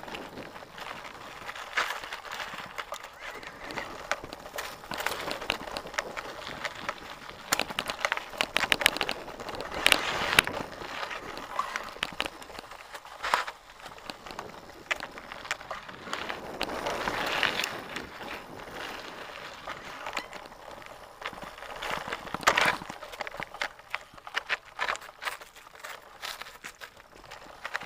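Mountain bike descending a dirt trail: tyres rolling and crunching over dirt, stones and dry leaves, with frequent clatter and knocks from the bike over bumps and a few louder surges.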